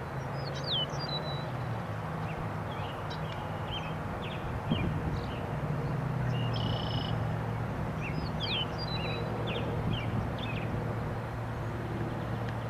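Birds chirping and calling repeatedly in short, quick notes, some sliding in pitch, over a steady low hum and an even rushing noise.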